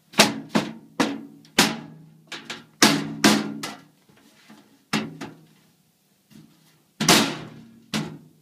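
Hammer blows on a steel filing-cabinet drawer: about a dozen irregular strikes, each with a short metallic ring, with a pause of about a second and a half before the last heavy blows. The panel is being knocked into place so that it locks in.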